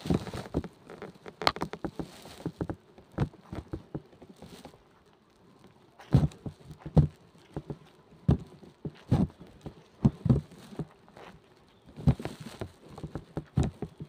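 Hand scissors snipping and crunching through wax honeycomb: irregular clusters of short clicks and taps, with a brief lull part-way through.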